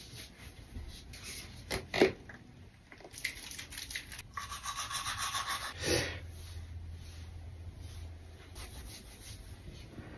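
Palms rubbed quickly together, about five strokes a second, for a second or two around the middle. A sharp knock comes about two seconds in, and softer handling noises follow.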